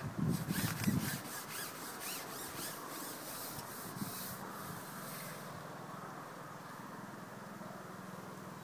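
Handling noise from a carbon fishing pole: rubbing and bumping for about a second, then a run of sharp clicks that stops about five seconds in. A faint steady low hum carries on under it.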